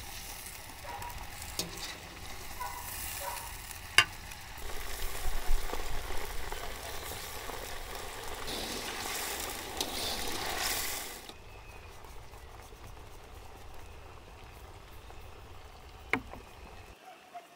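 Food sizzling as it fries in a pan and is stirred, with a sharp knock about four seconds in. The sizzle drops away about eleven seconds in, leaving a quieter stretch with another knock near the end.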